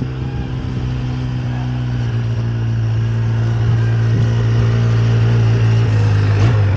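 Quad ATV engine running steadily at an even pitch, growing gradually louder as the ATV drives closer.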